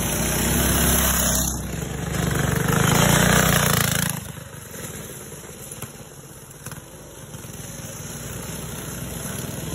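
Go-kart engine running as a kart passes close, loudest about three seconds in, then cut off abruptly near four seconds; after that a fainter kart engine that slowly grows louder.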